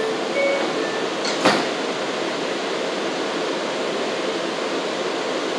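Steady hiss of an R179 subway car's ventilation while the train stands at the platform. The door chime fades out just under a second in, and a single sharp clunk comes about a second and a half in as the doors close.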